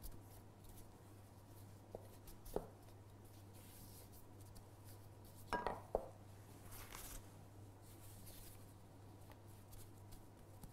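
Wooden rolling pin rolling out pizza dough on a floured board: faint rubbing with a few light knocks, over a low steady hum.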